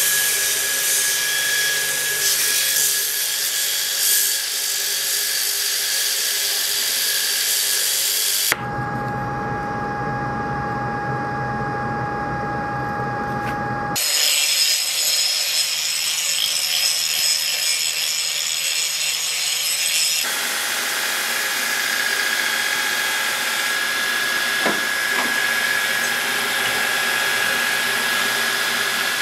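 An electric power tool running steadily under load: a hiss with a steady whine through it. The sound changes character abruptly three times, as separate takes are cut together.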